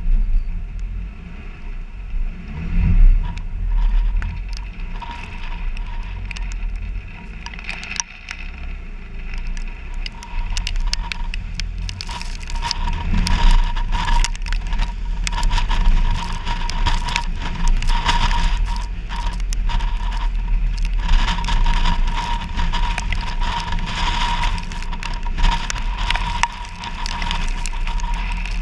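Off-road vehicle driving slowly over rock and sand, heard from a camera on its hood: a steady low engine drone with a thin steady whine, and from about ten seconds in a dense crackling and crunching of the tyres over rock and gravel.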